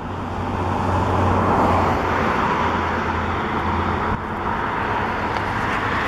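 Steady motor-vehicle and road-traffic noise, with a low hum that fades about four seconds in.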